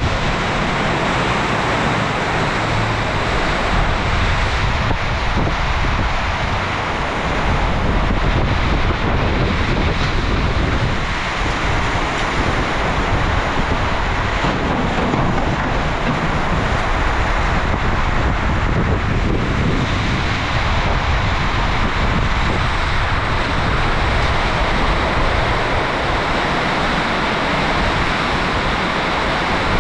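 Heavy rain and strong wind of a summer storm, a steady loud rush of noise with wind buffeting the microphone.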